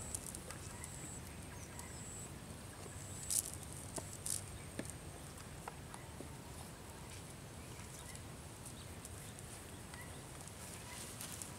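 Quiet open-air background with a faint high thin tone that comes and goes, and a few soft rustles and knocks about three to five seconds in.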